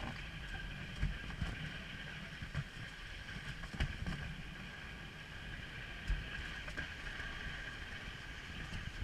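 Monte toboggan's wooden runners sliding down an asphalt road: a steady scraping hiss over a low rumble, with short knocks about one, four and six seconds in.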